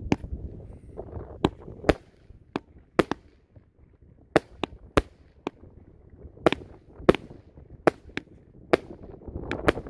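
A 16-shot 200 g consumer fireworks cake firing: a run of sharp bangs at uneven intervals, roughly two a second, as its shells launch and burst.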